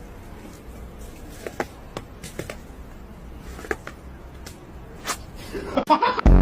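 Low steady background noise with several short, scattered clicks or taps, and a brief busier sound just before the end.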